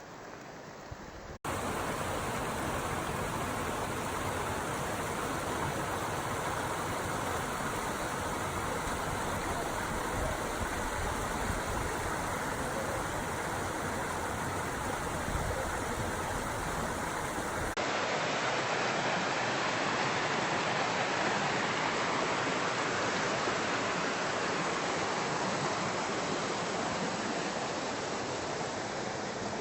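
River water rushing past in a steady, dense stream. The sound cuts in abruptly louder about a second and a half in, and changes character sharply near 18 seconds in, with less low rumble and more mid hiss, as one recording gives way to another.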